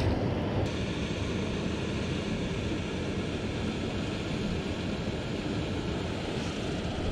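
Steady rushing of a fast-flowing mountain river.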